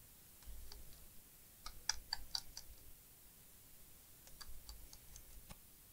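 Faint scattered clicks and taps of hands handling a laptop's plastic bottom case, in two loose clusters, about two seconds in and again near the end.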